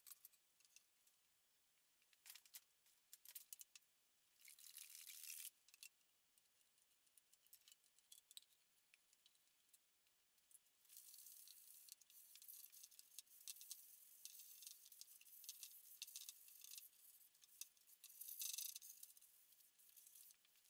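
Faint scratchy rubbing and rustling of hands working over a wooden panel: a short patch about four seconds in, then a near-continuous crackly stretch through the second half, loudest shortly before the end.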